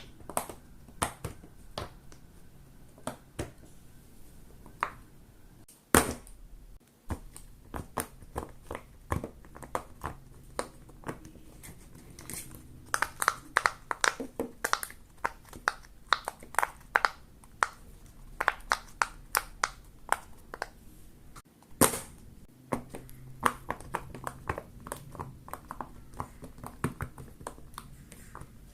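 Silicone pop-it fidget toy bubbles being pressed, giving sharp little pops in quick, irregular runs that come thickest about halfway through.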